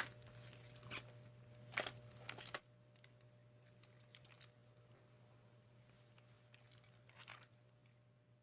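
Slime being squeezed and pressed by hand, giving short crackling, popping bursts in the first few seconds and once more near the end, over a faint steady hum.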